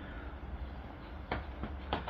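A steady low mechanical hum with two sharp clicks, one about a second and a quarter in and another near the end.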